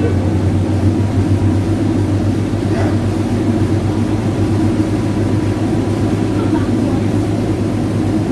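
Passenger boat's engine running steadily, a constant low drone, with faint voices in the background.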